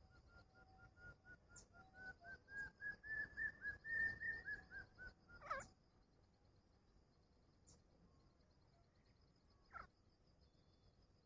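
Grey francolin calling: a long run of short, clear notes that speed up, climb in pitch and grow louder, then ease down after about four seconds. A sharp downward-sliding note follows, and a fainter one near the end, over a steady high insect chirring.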